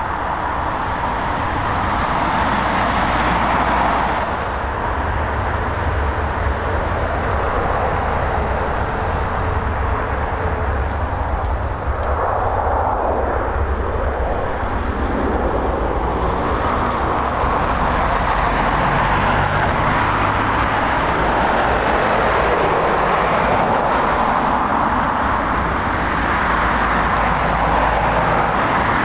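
Steady jet airliner engine noise at an airport: an even rushing sound with a deep rumble underneath, shifting a little about four seconds in.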